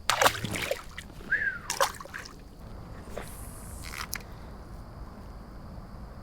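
Water splashing and dripping beside a kayak, with a few light knocks in the first couple of seconds and a brief splash about three seconds in.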